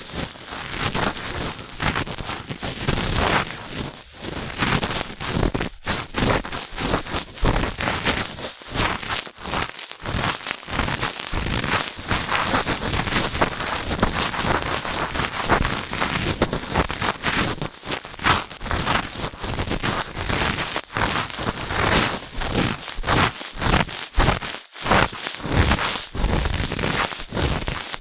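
Cotton swabs rubbing and scraping against the ear of a binaural microphone: a close, dense crackling scratch made of many quick strokes, with a few brief pauses.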